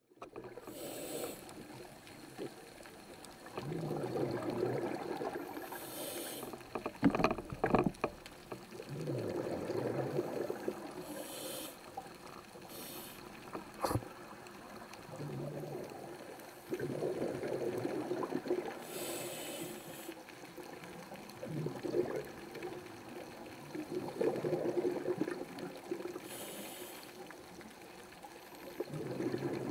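Scuba diver breathing through a regulator underwater: slow breaths, each with a short hiss and then a couple of seconds of bubbling on the exhale, about every seven seconds. A few sharp knocks in the middle.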